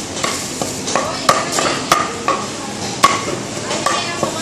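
Meat cleaver chopping through a black-skinned chicken onto a round wooden block: about a dozen quick, uneven chops, each a sharp knock with a short ring, over a steady hiss.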